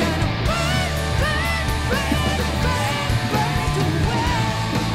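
Rock music with electric guitar and a singing voice over a steady bass line.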